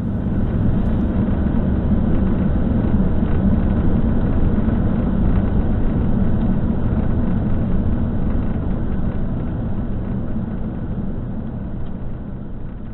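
Motorhome driving slowly: steady engine and road rumble, dense and low, easing off slightly toward the end.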